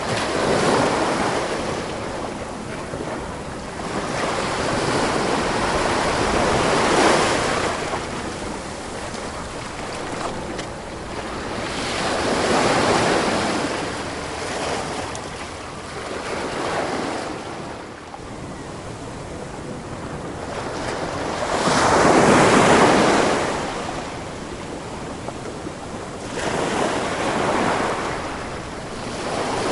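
Ocean waves breaking and washing on a shore, the surf swelling and falling back every few seconds, loudest about 22 seconds in. Some wind noise is mixed in.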